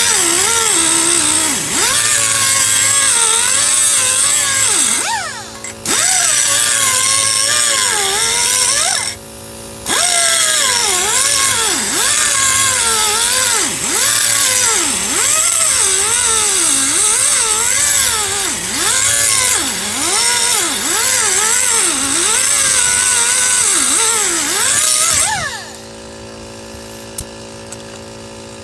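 A handheld power tool grinding the edge of a steel zero-turn mower blade, its motor pitch rising and falling as it bears on the edge. It breaks off briefly twice and stops near the end, leaving a quieter steady hum.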